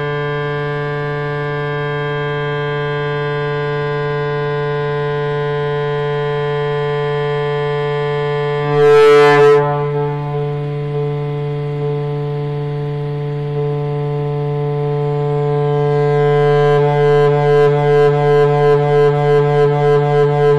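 A steady electronic drone, one held note with many overtones. A brief noisy rush cuts across it about nine seconds in, and from about sixteen seconds the drone starts pulsing a little more than twice a second.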